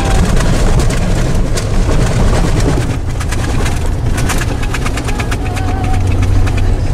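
Vehicle driving on a gravel dirt road, heard from inside the cab: a steady engine and tyre rumble, with a rapid run of clicks and rattles through the middle of the stretch.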